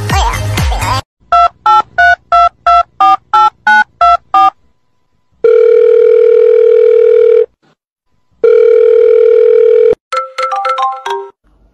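Music cuts off, then a telephone number is dialled on a keypad: about eleven short two-tone beeps in quick succession. Two long ringing tones follow, then a quick run of short beeps near the end.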